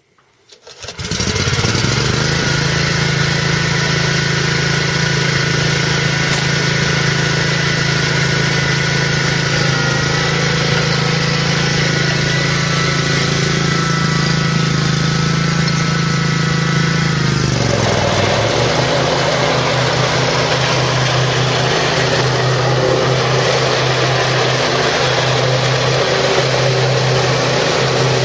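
The 17-horsepower Kawasaki FH541V V-twin engine of an Exmark Turf Tracer walk-behind mower starts about a second in and runs steadily at speed. Roughly two-thirds of the way through, its speed dips briefly and then recovers, and it runs on with a rougher hiss over the engine note.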